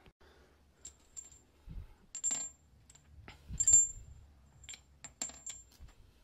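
Loose steel wheel studs and tools clinking against each other and the concrete floor as they are handled: a string of sharp metallic clinks, some ringing briefly, with a couple of dull knocks and the loudest clink a little under four seconds in.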